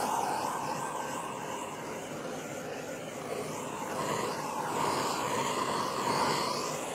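Handheld butane torch burning with a steady rushing hiss as its flame is swept over wet acrylic paint to pop air bubbles; the hiss swells a little around the middle and toward the end.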